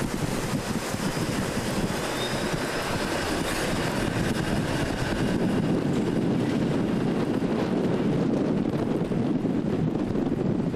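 Steady street traffic rumble, growing louder in the second half as vehicles pass close, with wind noise on the camcorder's built-in microphone.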